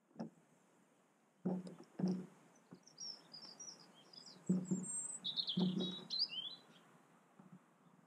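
A small songbird twittering in quick high chirping notes through the middle, with several short dull knocks close by, about five of them spread through the first six seconds.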